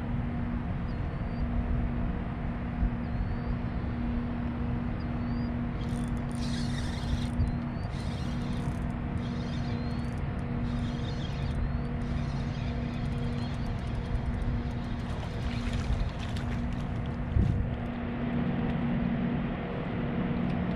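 Steady hum of a boat motor throughout. From about six seconds in, a spinning reel's drag buzzes in a series of short spurts as a hooked redfish pulls line during the fight.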